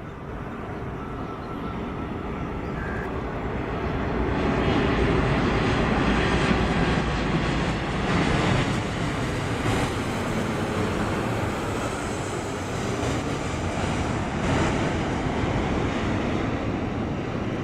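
Airliner engines running, swelling to a loud, steady noise over the first five seconds and holding there.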